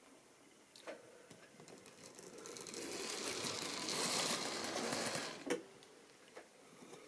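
Model railway diesel locomotive running past: its small electric motor whirs and its wheels rattle on the track. The sound grows louder as it approaches, is loudest as it passes about four seconds in, and ends with a sharp click as it goes by.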